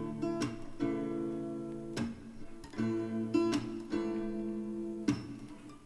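Song music: an acoustic guitar strumming chords between sung lines, each chord struck and left to ring. Nothing of the AC compressor is heard.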